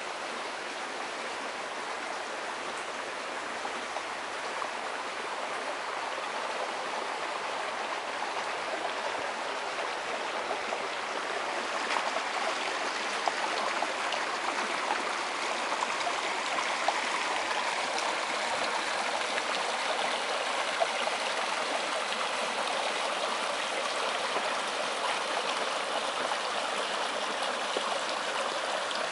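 Water rushing steadily along a narrow concrete irrigation canal, getting a little louder about halfway through.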